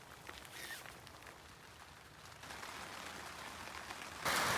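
Rain falling, light and faint at first with a few soft drips, then slowly building; near the end it jumps abruptly to loud, heavy rain.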